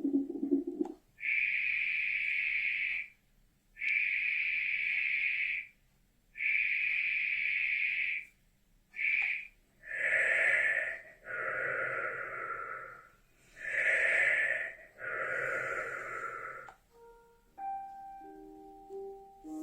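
Momcozy DreamSync baby sound machine cycling through its soothing sounds. A low, pulsing heartbeat-like sound plays for the first second. Then come three even bursts of hushing noise, each about two seconds long, followed by four longer, fuller noise swells. A piano lullaby starts near the end.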